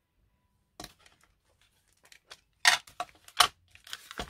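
Paper edges being distressed by hand: after a small tap, short scratchy rasps of paper, two strong strokes followed by a quicker run of them near the end.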